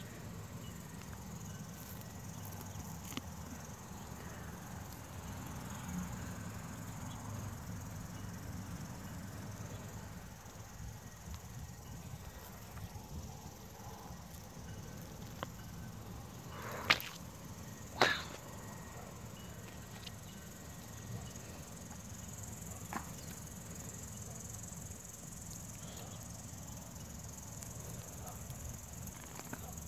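Faint steady chirping of crickets, with soft rustling of carrot tops and soil as carrots are pulled by hand. Two sharp clicks about a second apart stand out about two-thirds of the way through.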